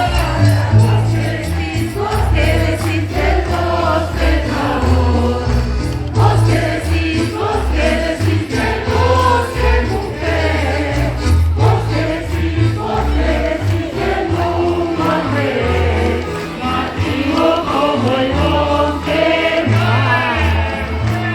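A large massed choir singing in Spanish, many voices together, over a low bass line of held notes that change about every second.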